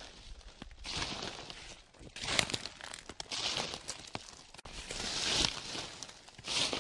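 Footsteps crunching through dry fallen leaves, about five steps with crackling rustle on each and softer rustling between.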